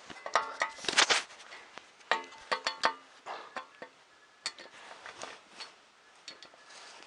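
Metal parts of a 3D printer kit clinking and knocking together as they are handled and fitted, with clusters of clicks near the start and around two to three seconds in; a few strikes ring briefly with a pitched metallic tone.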